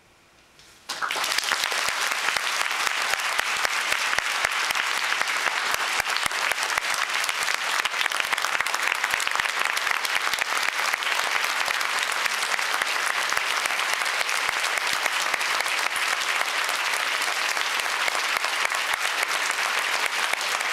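A large audience applauding: many hands clapping at once, breaking out suddenly about a second in and keeping up at a steady level.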